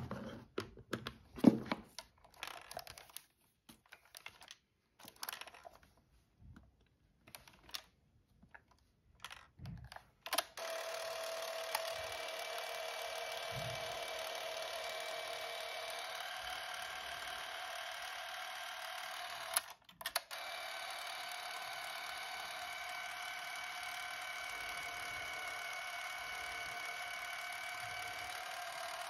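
Canon 514XL-S Super 8 movie camera being handled, with scattered clicks and knocks. About ten seconds in, its motor and film drive start running with a steady whir. The run stops for a moment about twenty seconds in, then starts again.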